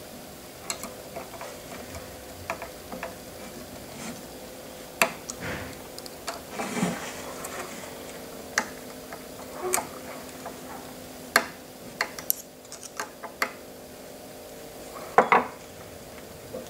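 Irregular small clicks and knocks of a screwdriver working the clamp screws of a jaw-type shaft coupler that joins a stepper motor to a ball screw, with metal parts handled and a screwdriver set down on a wooden bench. The sharpest knocks come about two-thirds of the way through and near the end.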